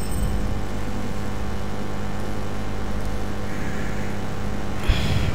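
Steady low hum, the constant background drone of the recording setup, with a brief soft knock near the end.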